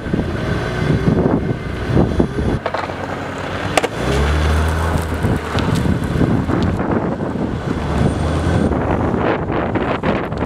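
Wind buffeting the microphone of a moving follow car, with the car's engine running underneath and a steady low hum from about four seconds in. A sharp click comes a little before that.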